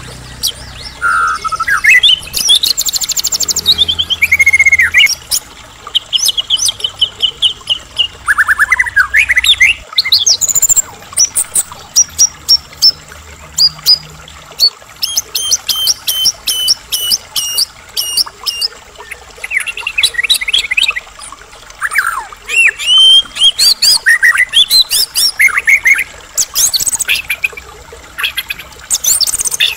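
White-rumped shama (murai batu) in full song: a fast stream of loud whistles, trills and rising and falling sweeps, with runs of quickly repeated notes and brief pauses between phrases.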